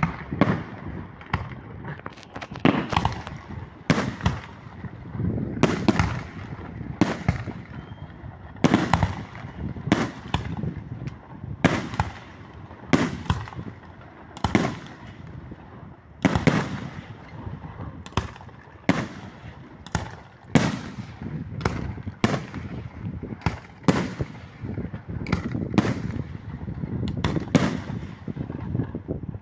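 Fireworks display: aerial shells bursting in sharp bangs about once a second, sometimes two close together, each followed by a low rumbling echo that fills the gaps.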